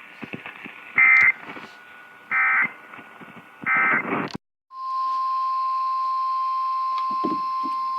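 Three short, buzzy Emergency Alert System data bursts, the end-of-message code, about a second and a half apart over radio hiss. After a brief dead gap, a steady single-pitch NOAA Weather Radio warning alarm tone starts a little past halfway and holds.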